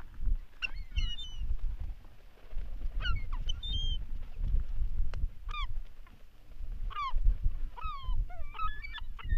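A flock of gulls calling while feeding on discarded fish guts: many short cries that fall in pitch, coming thicker and overlapping near the end.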